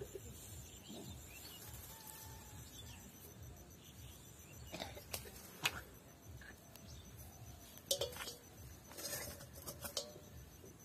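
Faint background with scattered sharp clicks and knocks from hands handling a fishing line and a steel bait bowl. A few come about five seconds in, and a cluster comes near the end.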